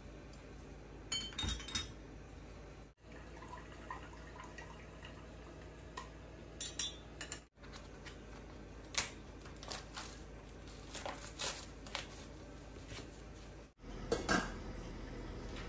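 Kitchen handling sounds: scattered light clinks and knocks of bottles, utensils and a plastic meat tray. Near the end a stainless-steel lid is set on a saucepan with the loudest clank.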